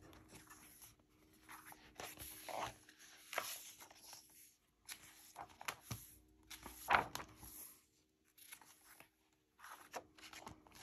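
Hands opening a hardcover picture book and turning its paper pages: soft rustles and brushes of paper, with a louder page sweep about seven seconds in.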